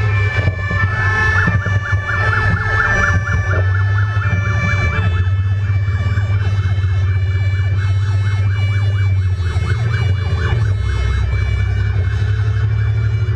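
Fire engine siren sounding in a fast, repeating up-and-down yelp over a steady low hum and several fixed high whining tones.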